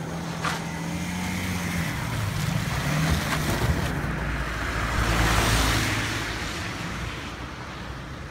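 BMW F10 5 Series sedan's engine running as the car drives off. A broad rush of tyre and snow noise swells about five seconds in as it climbs a snowy track, then fades toward the end. A few sharp clicks are heard in the first four seconds.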